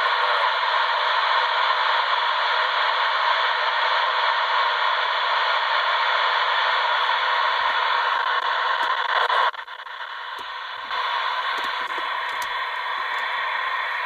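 Open-squelch CB radio static hissing from the small, tinny built-in speaker of a Midland 77-225A one-hander CB. The hiss drops out sharply about nine and a half seconds in and comes back a little quieter a second and a half later.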